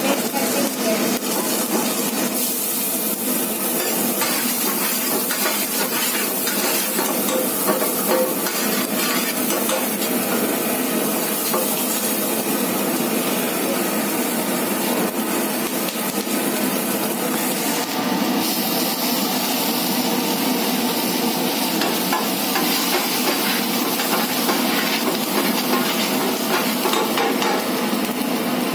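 Chopped onion and vegetables sizzling in hot oil in a shallow pan over a gas burner. A spatula scrapes and knocks against the pan as the food is stirred.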